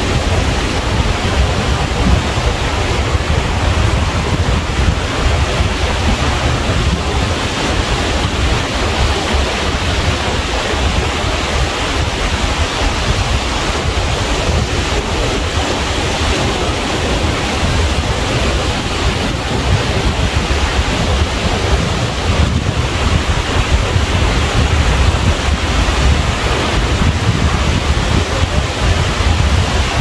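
Ocean surf washing steadily, with wind buffeting the microphone and adding a low rumble.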